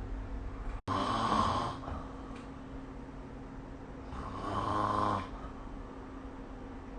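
A sleeping person snoring: two snores about three seconds apart, each lasting about a second, over a steady low hum.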